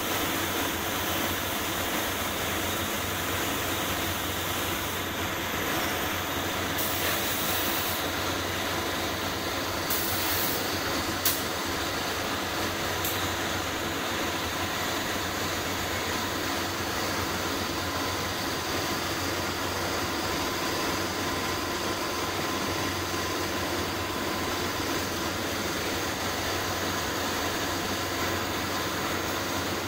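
Steady machine drone of a spray-painting setup, with short hisses of compressed air from a hose-fed paint spray gun about five to eight seconds in and again around ten seconds, and one sharp click a little after eleven seconds.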